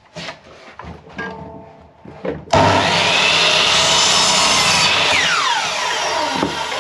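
Electric compound mitre saw cutting a length of timber. A few handling knocks come first, then about two and a half seconds in the motor starts with a sudden loud whine and the blade cuts through the wood. Near the end a tone in the motor's note falls steeply in pitch.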